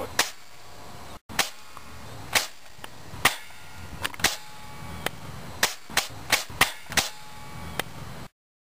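Airsoft rifle firing about a dozen single shots at uneven intervals at point-blank range, each a sharp crack. The shooting stops abruptly near the end.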